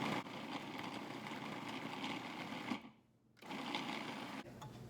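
Cuisinart food processor pulsing butter and bananas, its motor running in short bursts: it stops abruptly about three seconds in, starts again half a second later and cuts out near the end.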